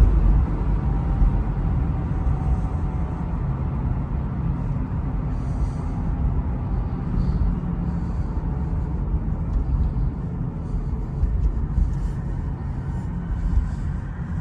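2012 Honda Civic driving, heard from inside the cabin: a steady low rumble of engine and road noise.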